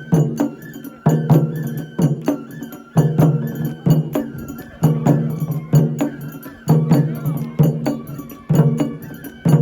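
Traditional Japanese festival music: a deep drum struck about once a second, with quicker sharp strikes between the beats and a high wavering melody above.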